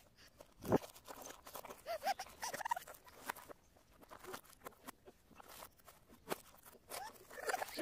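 Crinkling and crunching of shiny foil-type wrapping paper on a present as a baby grabs and shoves it across the carpet: many short, irregular crackles. A couple of brief high baby squeals come through, around two seconds in and near the end.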